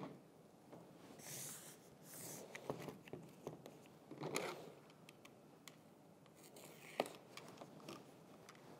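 Wide framer's tape being pulled off its roll and smoothed down across the back of a jigsaw puzzle: faint, scattered peeling and rubbing noises, then a craft knife cutting the tape with a sharp click about seven seconds in.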